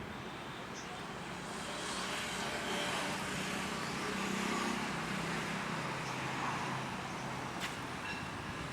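A motor vehicle going past, its engine and tyre noise swelling to a peak midway and then easing off, with a short click near the end.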